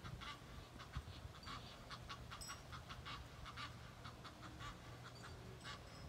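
Waterfowl calling: a rapid run of short, harsh calls, about three or four a second, over a low steady hum.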